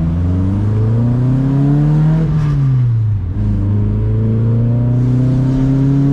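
Carbureted four-cylinder engine of a 1977 Dodge Colt (Mitsubishi Lancer), heard from inside the cabin, pulling through the gears: the engine note climbs, drops sharply at an upshift about two and a half seconds in, then climbs again more slowly in the next gear.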